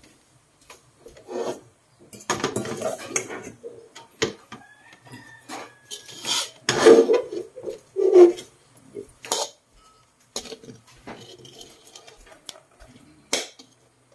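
Metal spatula scraping and stirring fried rice vermicelli in a steel wok, in irregular strokes, with the loudest scrapes about seven to eight seconds in.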